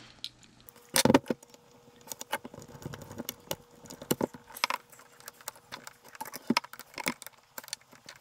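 Scattered metal clicks and clinks as long screws are dropped through the corners of a small aluminium alternator housing and the unit is handled, with a louder knock about a second in.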